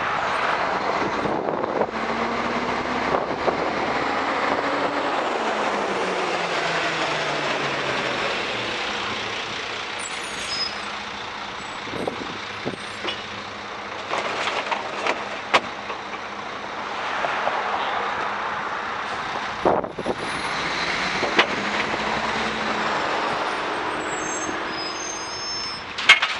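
A Heil DuraPack 5000 rear-loader recycling truck's engine runs nearby, its pitch falling as the truck slows to a stop. Sharp clanks and knocks come partway through and again near the end as recyclables are tossed into the rear hopper.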